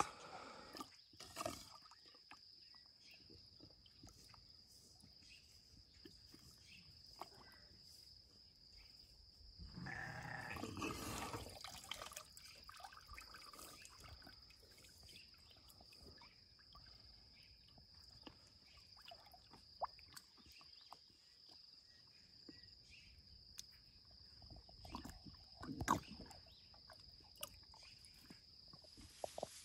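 African elephant calf drinking with her mouth submerged in a concrete water trough: faint splashing and dribbling of water, with a louder stretch of sloshing about a third of the way through and a sharp splash or knock near the end. A steady high-pitched tone sits underneath.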